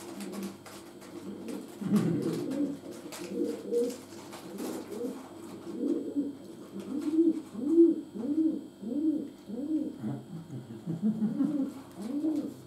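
A man's closed-mouth "mm" hums of enjoyment while chewing, each one rising and falling in pitch. They are irregular at first, then repeat steadily at about one and a half a second.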